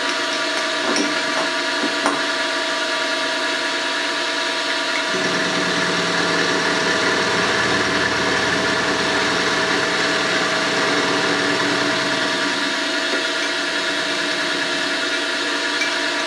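Milling machine running steadily with a whine, its end mill cutting away the corner of a lathe toolholder clamped in the vise. A lower rumble joins for several seconds in the middle of the cut.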